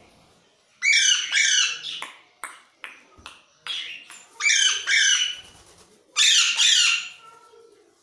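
Pet parakeets squawking: three bouts of loud, harsh screeches, two or three calls at a time, with small clicks and taps between them.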